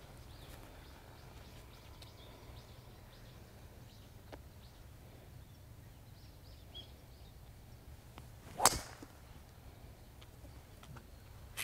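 Golf driver striking the ball off the tee: one sharp, loud crack about two-thirds of the way in, over faint steady outdoor ambience. A second sharp crack comes right at the end.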